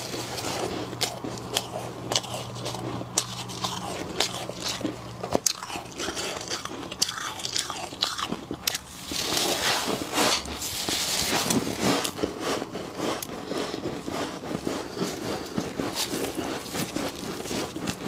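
Thick freezer frost crunching and crackling under gloved hands as it is dug and scraped from the walls of a chest freezer, with a louder crumbling shower of frost about ten seconds in. A low steady hum underneath stops about five seconds in.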